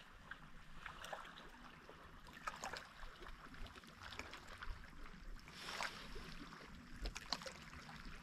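Light rain falling on the water and the boat: a soft hiss with scattered, irregular drop ticks.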